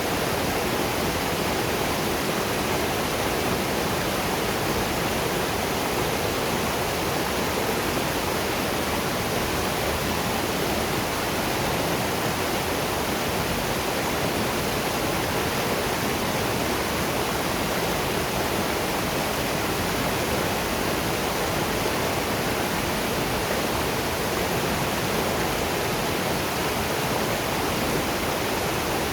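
Waterfall and river water rushing in a steady, unbroken roar.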